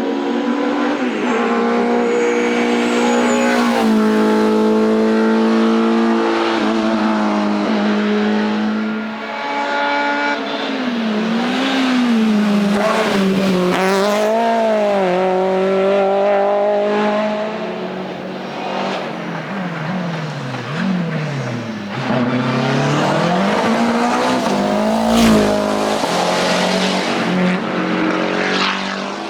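Racing car engine on a hillclimb course, revving hard and changing gear, its pitch falling and rising repeatedly as it brakes and accelerates through corners. A short sharp crack sounds once, about 25 seconds in.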